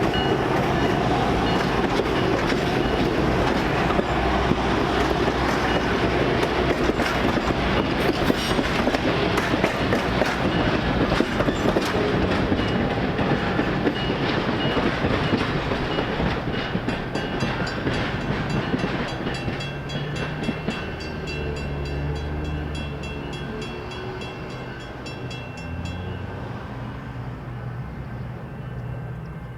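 Passenger train rolling past close by, its wheels clicking over the rail joints; over the second half the sound fades away as the train moves off.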